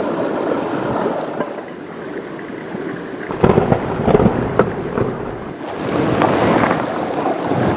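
Steady rush of heavy rain and river water, with a louder, deeper rumble from about three and a half to five and a half seconds in.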